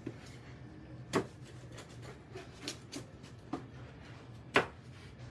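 Pizza wheel cutter slicing through a baked margherita's crust on a wooden board: a handful of short sharp crunches and knocks, the loudest near the end, over a low steady hum.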